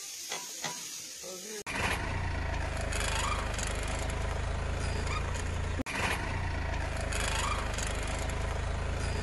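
Steady rumbling and grinding from the front wheel of a Mercedes car as it rolls, starting about a second and a half in. The wheel's bolts are loose, barely tightened, and the noise is loud enough to pass for a failing wheel bearing.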